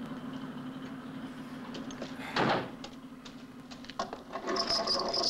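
A truck cab door shuts with one loud thud about halfway through, over a steady low hum. A creaking squeak follows near the end.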